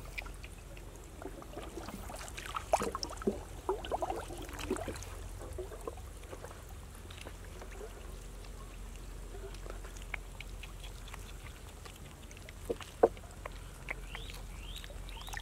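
Hands sloshing and rummaging in shallow pond water among floating plants: small splashes, drips and trickles, with a few louder splashes about three to five seconds in and a sharp splash near the end. A few short rising chirps come just before the end.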